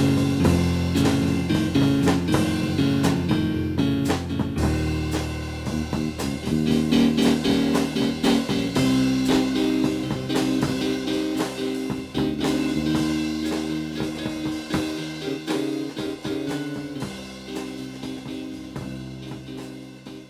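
Background music, a blues-rock style track with guitar and drums, gradually fading out.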